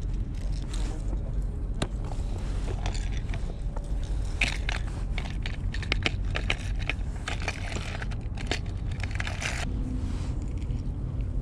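Steady wind rumble on the microphone, with a run of small clicks, rattles and scrapes from hands swapping a lure at the line clip and rummaging in a lure box; the clicking stops near the end.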